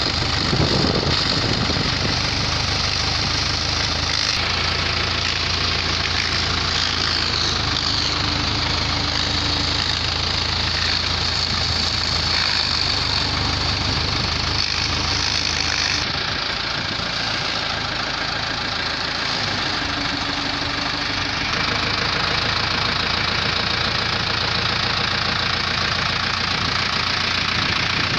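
Tractor engine running steadily under load, driving a shaft-powered mill that shreds dry maize stalks as they are fed in. The noise eases a little about midway, then picks up again.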